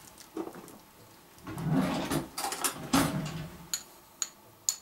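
A metal teaspoon scooping juniper berries out of a small glass jar: scraping and rattling in the jar, then three sharp, ringing clinks of the spoon against the glass near the end.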